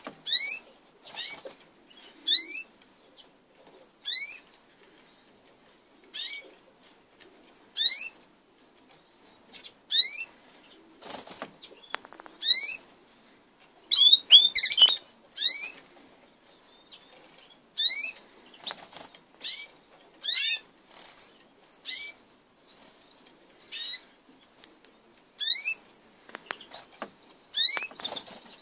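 Caged finches, a Siberian goldfinch and canaries, calling in short rising whistled notes, a few at a time every second or two. Wings flutter as the birds flap and hop on the perch, and the calling is busiest about halfway through.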